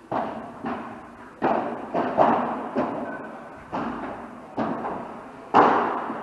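Padel rally: about nine sharp, uneven hits of rackets striking the ball and the ball bouncing, each dying away in an echo.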